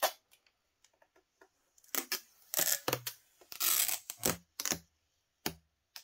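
Clear protective plastic film being peeled off the glossy plastic casing of a robot vacuum: a few faint ticks, then a handful of short crackling rips about two seconds in.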